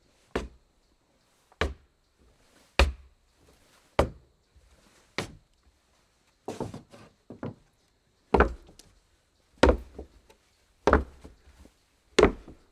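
Footsteps on a wooden floor, walking at a slow, even pace of about one heavy step every second and a bit. There are small scuffs and creaks between the steps and a quicker run of lighter steps near the middle.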